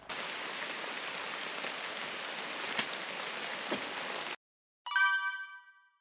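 A steady rain-like hiss that cuts off abruptly a little over four seconds in. After a short silence, a single bright chime rings out and fades away over about a second.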